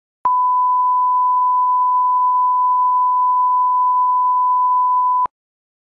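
Steady 1 kHz line-up reference tone that runs with the colour bars at the head of a broadcast commercial. It starts about a quarter second in and cuts off sharply after about five seconds.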